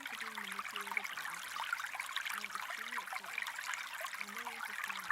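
Steady running water, a trickling stream, with an even splashing hiss that does not let up.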